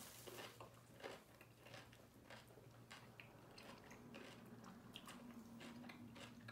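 A person chewing a bite of pickle with the mouth closed: faint, irregular crunchy clicks, several a second.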